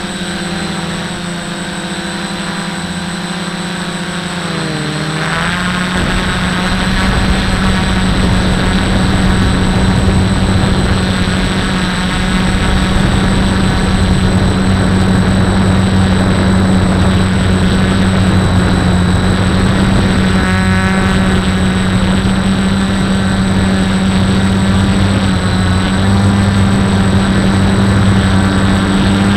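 Quadcopter motors and propellers whirring steadily, heard close up from the drone's own onboard camera. About five seconds in, the pitch dips, then the sound grows louder and rougher with air rushing past in flight.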